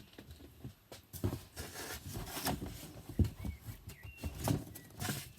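Vinyl records in their sleeves being handled and shuffled in a cardboard box: a run of irregular knocks and clicks over rustling.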